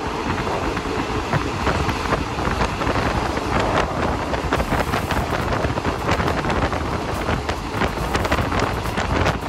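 Passenger train running, heard from inside a third-class carriage: a steady rushing rumble with irregular rattles and clicks from the wheels and carriage, and wind buffeting the microphone.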